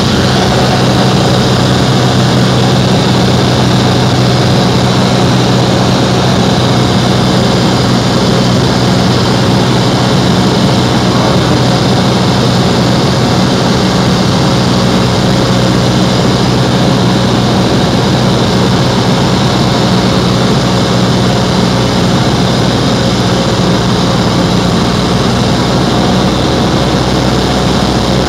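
Cessna 172SP's four-cylinder Lycoming engine and propeller running steadily in cruise, a loud, unchanging drone heard inside the cabin.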